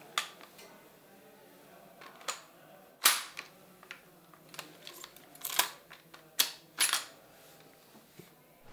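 Bolt-action rifle being handled: a dozen or so sharp, irregular metallic clicks and clacks as the bolt is worked and parts are fitted, the loudest about three seconds in.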